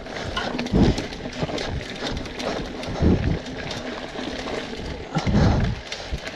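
Hardtail mountain bike riding a dirt singletrack: a continuous irregular clatter of tyres over roots and stones and the bike rattling, with heavier low thumps about a second in, about three seconds in and near the end.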